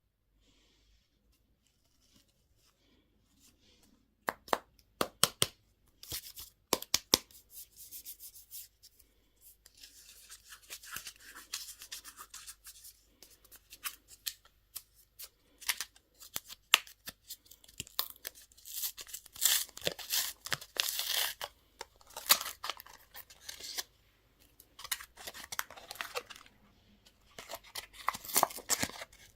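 Candy packaging being handled and opened by hand: a few sharp plastic clicks and snaps about four seconds in, then repeated spells of crinkling and tearing wrapper.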